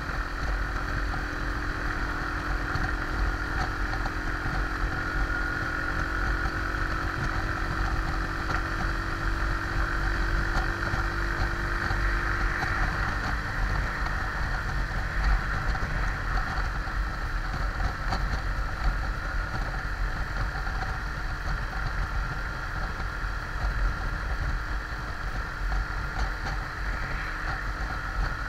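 Junak motorcycle riding at steady road speed: wind rushing over the camera with the engine running steadily underneath.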